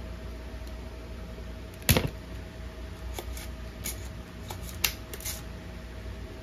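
Sharp clicks and taps of tools and parts being handled on a workbench: one loud click about two seconds in, then a scattering of lighter clicks, over a steady low hum.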